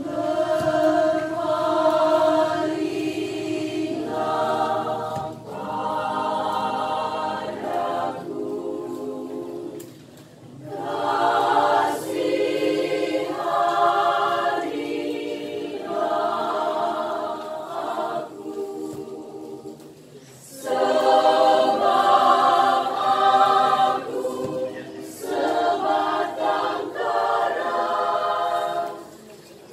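Women's choir singing in several parts, phrase after phrase, with short breaks about ten and twenty seconds in and again near the end.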